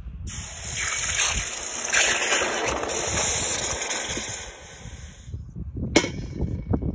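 Hot copper ingot quenched in a steel bowl of water: a loud steam hiss and sizzle for about five seconds, then a sharp knock about six seconds in, followed by a brief fading hiss.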